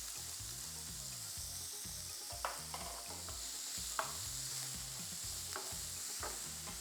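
Finely chopped onion and green chilli frying in hot ghee and oil, a steady sizzle, with a few light clicks of a spatula stirring against the pan.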